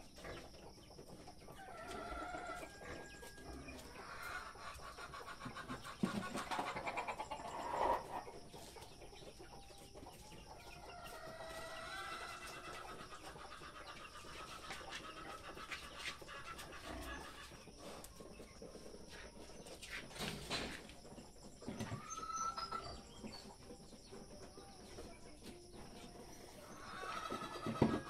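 Chickens clucking on and off, with several sharp knocks in between.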